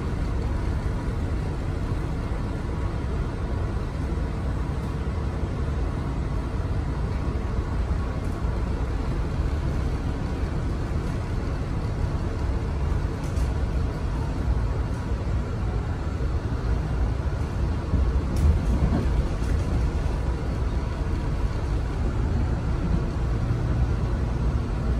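Inside a Metro-North M3A electric multiple-unit car in motion: a steady low rumble of the wheels on the rails and the car running, with a faint steady whine. It gets a little louder in the second half.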